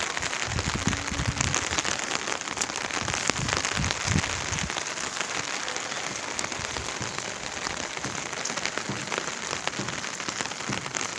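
Heavy rain falling: a steady hiss with countless fine drop patters, described as very fast rain. A few low bumps come through in the first four seconds.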